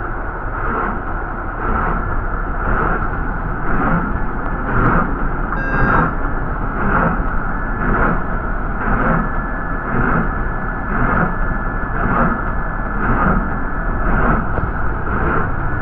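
Inside a city bus on the move: engine and road noise with an even pulsing about twice a second. A short electronic beep sounds about six seconds in, followed by a thin high tone.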